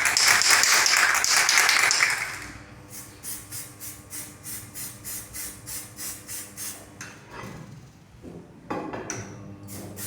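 A spray hiss of magnetic particles lasting about two seconds, over the steady electrical hum of an energised magnetic particle testing yoke. After the spray comes quieter, regular ticking at about three a second.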